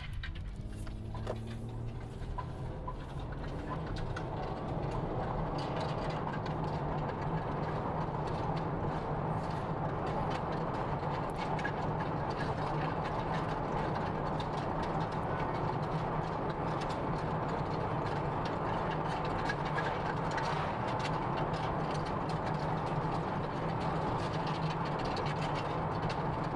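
Road and engine noise heard inside a car's cabin as it pulls away from a turn and speeds up. The noise builds over the first several seconds, then holds steady at cruising speed.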